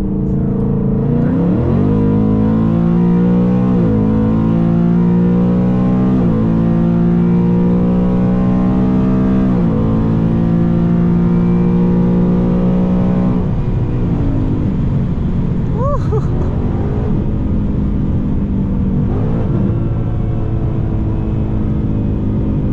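2018 Ford Mustang GT's 5.0 Coyote V8, with long-tube headers and a resonator-deleted H-pipe, pulling at full throttle in fifth gear, heard from inside the cabin. The engine note climbs steadily in pitch for about twelve seconds, then drops as the throttle is lifted and settles lower at cruise.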